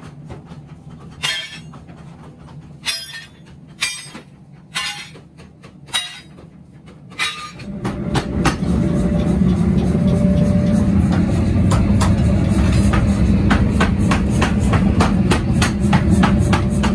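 Flat steel plate blanks clanking as they are handled and dropped onto the metal bed of a truck, about six sharp ringing clanks with pauses between them. About eight seconds in, a loud, steady low machinery rumble with frequent small clicks takes over.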